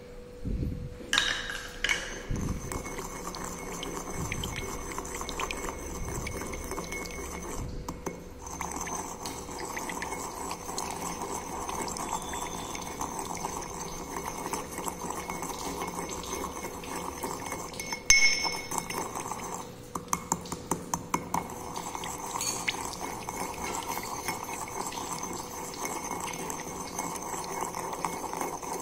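Pestle stirring and rubbing round a porcelain mortar through a wet powder-and-water mixture: a continuous scraping swish with scattered clinks of pestle on bowl and one sharper knock about 18 seconds in. It opens with water poured in from a glass beaker and a few clinks of glass.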